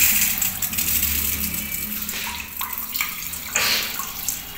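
Handheld bidet spray (health faucet) spraying water onto a tiled floor: a steady rushing hiss, loudest at the start, with a brief stronger surge about three and a half seconds in.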